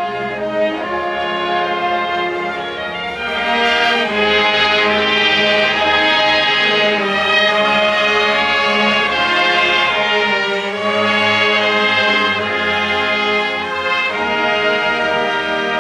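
A junior high school symphony orchestra, strings and brass together, playing a medley of Disney film music. The sustained chords swell fuller and louder about four seconds in.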